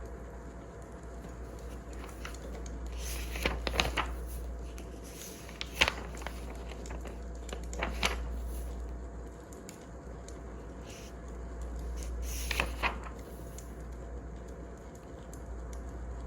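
Wood fire crackling, with a few sharp pops scattered over a steady low rumble.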